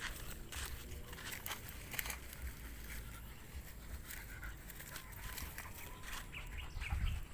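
Footsteps and small scattered clicks and rustles over a low wind rumble on the microphone, with a few faint short chirps near the end.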